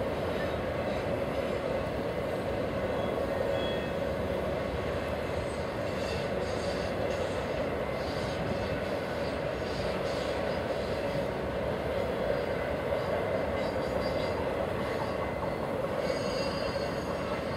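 Enclosed autorack cars of a freight train rolling past at steady speed: a continuous, even rumble of steel wheels on rail.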